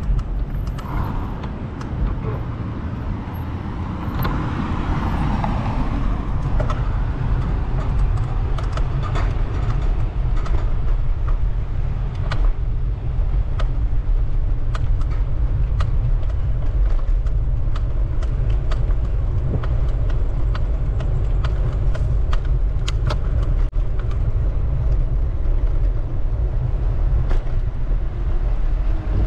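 Steady low rumble of wind and road noise on a moving bicycle, with many small clicks and rattles, more frequent from about eight seconds in.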